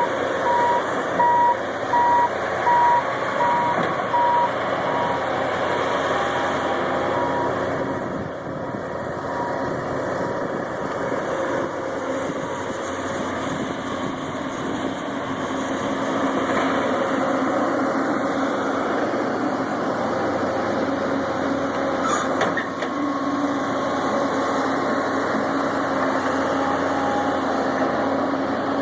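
Caterpillar 320CL hydraulic excavator running steadily on its diesel engine, with its travel alarm beeping in a regular on-off pattern for the first three seconds or so.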